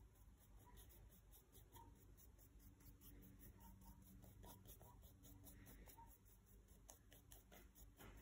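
Faint scratching of a colouring tool scrubbed across sketchbook paper in short repeated strokes, laying down yellow colour.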